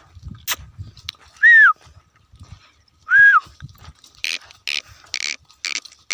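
Two loud whistled notes, as a herder whistles to drive water buffalo: the first rises and then falls, the second is held and drops at its end. From about four seconds in comes a quick run of short hissing sounds, about two a second.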